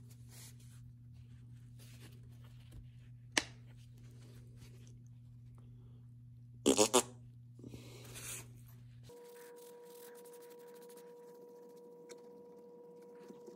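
Polishing cloth rubbing over a lacquered guitar body. About seven seconds in, the squeeze bottle of 3M Perfect-It polishing compound sputters out three quick squirts with air, the loudest sound, over a steady low electrical hum that gives way to a higher steady tone about nine seconds in.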